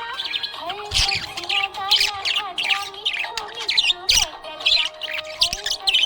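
Budgerigar chirping and squawking in a rapid run of short, high chirps, several a second.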